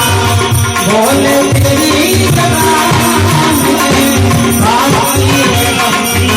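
Live bhajan music: a drum keeping a steady beat, with rattling hand percussion and a melody line over it.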